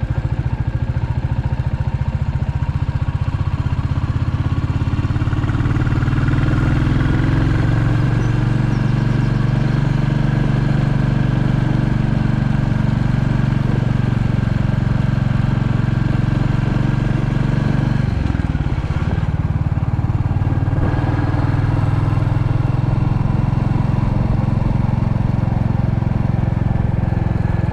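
Royal Enfield Classic 350's single-cylinder engine running steadily under way. The engine note drops about 18 seconds in and then picks up again.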